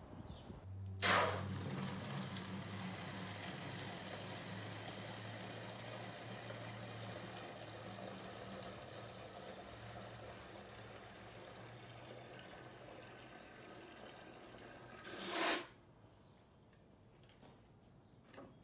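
Water from a garden hose rushing into a black watering can, filling it. The flow starts abruptly about a second in, runs steadily with a low hum, and cuts off with a short loud burst about fifteen seconds in.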